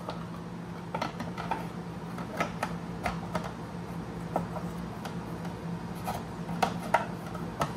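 Scattered light clicks, taps and rubbing from a rubber compression strap being stretched over a metal chain guard and hooked down, over a steady low hum.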